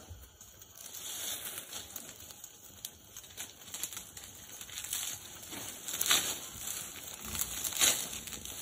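A bundle of dry fronds rustling and crinkling as it is swung and shaken over a smoky fire, with louder swishing strokes about six and eight seconds in.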